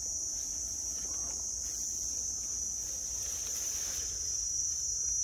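Insect chorus shrilling steadily at a high pitch without a break, over a low rumble.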